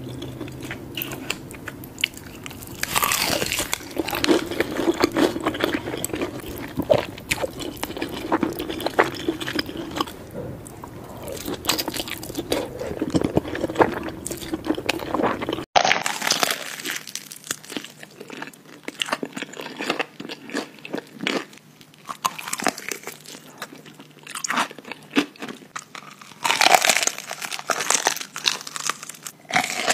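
Close-miked eating of crispy fried chicken: crunchy bites into the batter and chewing, repeated throughout, with the loudest crunches near the start and near the end. About halfway through the sound changes abruptly as the background hum drops away.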